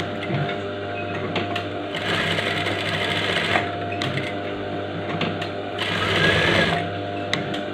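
Industrial single-needle sewing machine stitching a pocket flap in short runs over a steady motor hum. The stitching eases off briefly about three and a half seconds in and again near the end, then carries on.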